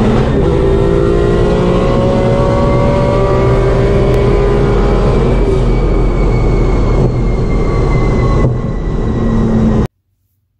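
Turbocharged Subaru WRX STI race car's engine running under load at speed, heard from inside the stripped cabin with loud wind and road noise. The sound cuts off abruptly near the end.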